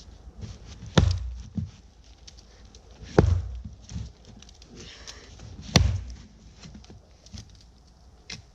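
Axe chopping into the trunk of a dead, tough tree: three heavy strikes about two to two and a half seconds apart, with lighter knocks after the first two.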